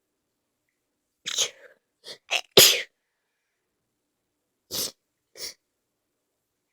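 A person sneezing in a fit: a quick run of sneezes in the first half, the loudest about two and a half seconds in, then two fainter sneezes near the end.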